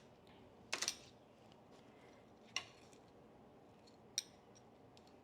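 A few light clicks and taps of kitchen tongs while cooked bacon strips are moved onto paper towels: a quick cluster of clicks about a second in, then single clicks about two and a half and four seconds in.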